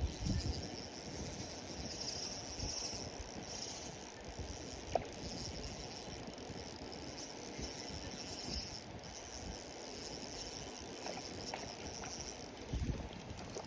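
Outdoor pond-side ambience: a steady high-pitched insect buzz over a low, uneven rumble, with a sharp click about five seconds in and soft thumps at the start and near the end.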